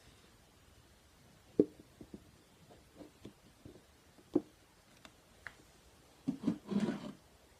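Plastic Tupperware containers handled close up: scattered light taps and clicks on plastic, the sharpest about a second and a half in, then a short run of rubbing and clattering near the end.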